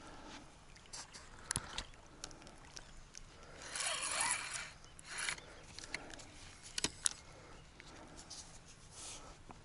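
Handling noises from feeder fishing tackle in a boat: a few sharp clicks and knocks, with a louder rustling scrape lasting about a second around four seconds in.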